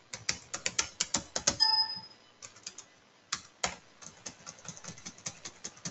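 Computer keyboard keys typed in quick runs of clicks, with a sparser stretch in the middle.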